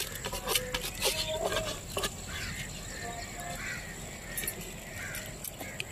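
Short animal calls repeated about twice a second from about two seconds in, after a few light knocks.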